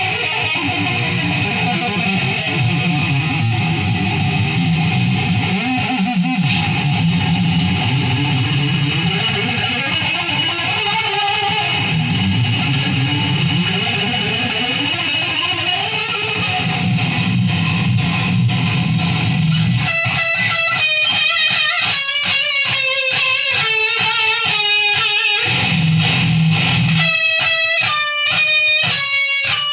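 Electric guitar playing: thick, full chords for about the first two-thirds, then a quick run of single notes stepping up and down to the end.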